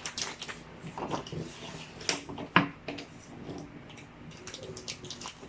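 Irregular small clicks and rustles of a plastic hot dog package being handled and opened.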